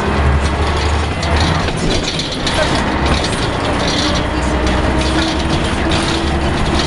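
Cabin sound of a Scania L113CRL bus with East Lancs European body on the move: the 11-litre six-cylinder diesel drones low, with a faint whine that slowly rises in pitch twice, under a constant clatter of the body's panels and fittings rattling.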